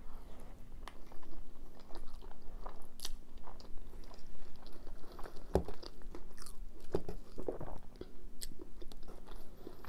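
Close-up chewing of a mouthful of chilli cheese fries: irregular wet chews and mouth smacks, with short sharp clicks scattered through.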